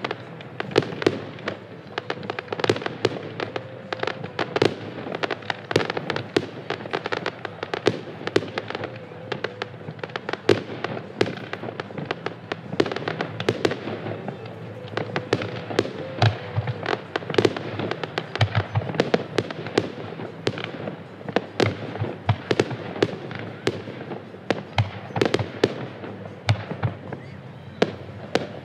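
Fireworks display: a continuous barrage of bangs, several a second, with no let-up.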